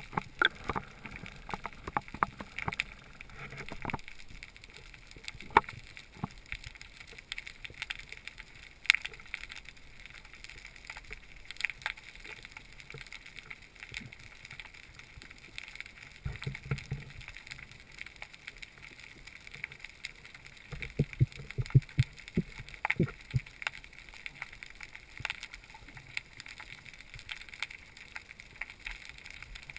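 Underwater sound picked up through a camera housing: a steady hiss with scattered sharp clicks and crackles, and short low rumbles midway and again about three-quarters through.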